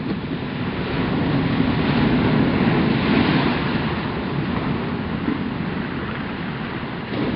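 Ocean surf breaking and washing over flat coquina rock ledges, a continuous rush of water that swells louder with an incoming wave about a second in and eases off after.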